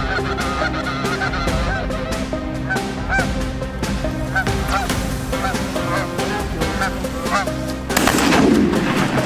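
Canada geese honking repeatedly as they fly in overhead, then a burst of shotgun fire near the end.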